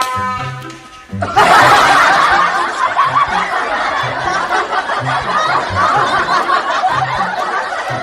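Loud, sustained laughter breaking out about a second in, over background music with a steady beat. A short pitched sound is heard at the very start.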